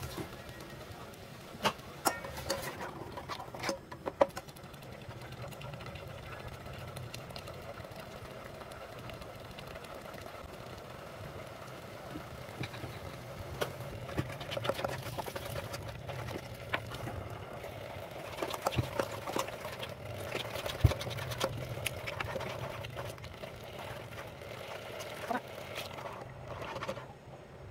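Thick sauce simmering in an aluminium pot, with scattered pops and clicks, and a metal ladle stirring and knocking against the pot, over a steady low hum.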